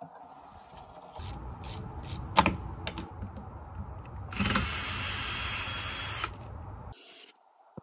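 Cordless drill removing screws from a boat's gunwale, running in short bursts with one longer run of about two seconds in the middle and a sharp knock a couple of seconds in.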